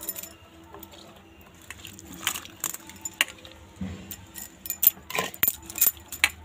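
Scattered light metallic clinks and taps of cooking utensils, an aluminium pot and steel bowl, several of them close together in the second half.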